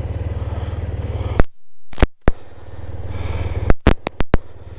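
Motorcycle engine idling with a steady low pulsing rumble, which drops out briefly about a second and a half in. Sharp clicks and knocks come several times, bunched near the end.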